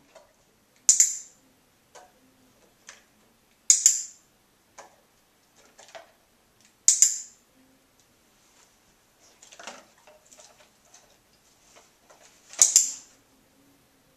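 Handheld dog-training clicker clicked four times a few seconds apart, each a sharp double click. The clicks mark the moment the dog touches its front paw to the floor target.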